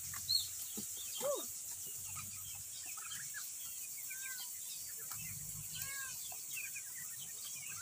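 Domestic poultry calling: many short, faint chirps and a few louder clucking calls, the loudest about a second in.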